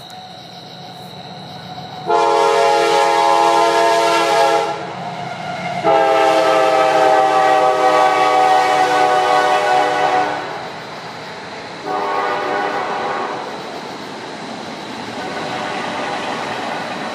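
Norfolk Southern diesel locomotive horn sounding a multi-note chord in two long blasts and a short one, the opening of the grade-crossing signal, over the rumble of the approaching train.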